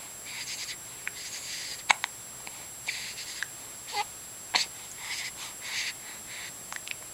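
Baby hiccuping: several short, sharp hiccups, the loudest about two seconds in and two more around four seconds, with breathy sounds between them.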